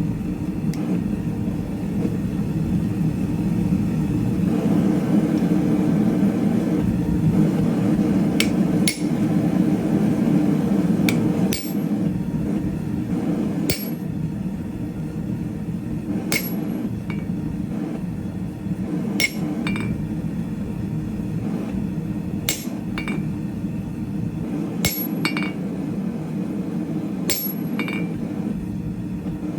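Hand hammer striking 3/8 in square steel stock on an anvil in hand forging: sharp ringing blows every two to three seconds, several in quick pairs, beginning about eight seconds in, over a steady low roar.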